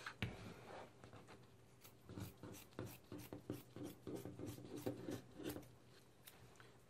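Scissors cutting through fabric in a quick, irregular series of short snips, with the cloth rustling as it is pulled and turned.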